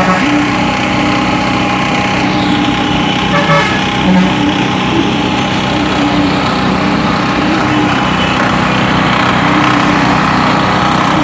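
Heavy vehicle engines running steadily at a concrete pour, with a brief higher tone about three and a half seconds in.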